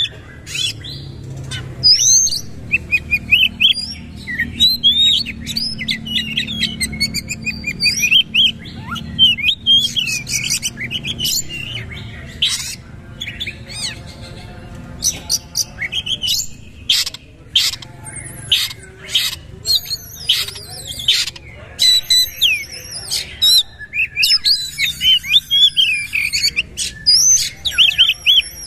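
Oriental magpie-robin (kacer) singing a loud, varied song of whistles and pitch glides, with a rapid run of short sharp notes in the middle.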